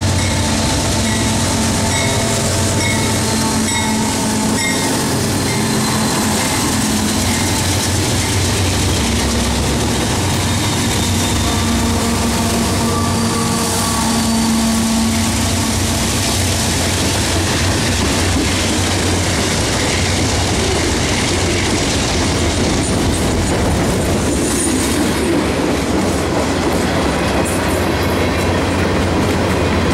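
CSX freight train passing at speed. Its diesel locomotives run by first with a steady engine drone, and then the wheels of the intermodal well cars roll over the rails in a continuous rumble.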